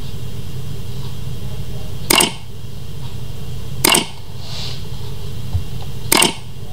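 Three sharp mouse-click sound effects about two seconds apart, the clicks of a subscribe-button animation on Like, Subscribe and the bell, over a steady low hum.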